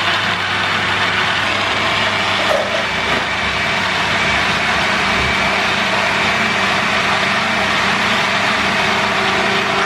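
Countertop blender motor running steadily, blending boiled potatoes, eggs and milk into a thin liquid batter.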